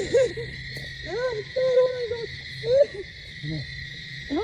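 An owl hooting in a series of short rising-and-falling calls, one held longer, over the steady high drone of night insects.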